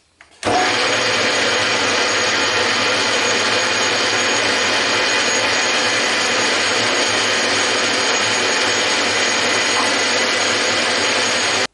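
Metal lathe running, its headstock spinning the four-jaw chuck and shaft: a steady mechanical whine with gear noise. It starts abruptly about half a second in and stops abruptly near the end.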